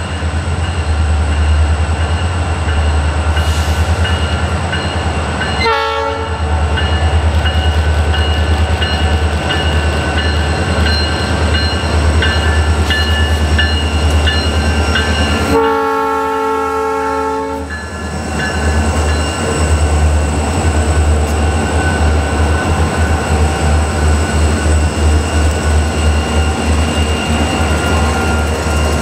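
Freight train led by EMD SD40-2 diesel locomotives approaching and passing, the diesel engines running with a steady low rumble. The lead unit's multi-chime air horn sounds a short blast about six seconds in and a longer blast of about two seconds around sixteen seconds in. As the units pass, wheels click over the rail in a quick rhythm.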